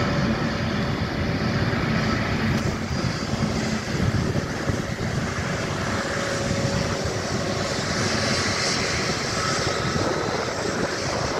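Airbus A330-300 freighter's twin jet engines at taxi power: a steady, even roar with faint whining tones riding on top.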